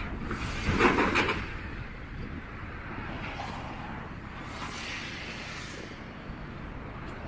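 Passing road traffic: a vehicle goes by close and loud about a second in, then a steady traffic hum with softer passes.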